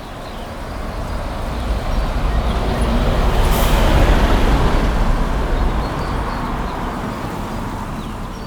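Mountain bike rolling fast over a dirt trail: tyre noise and wind rush with a heavy low rumble, building to a peak about four seconds in, then easing off.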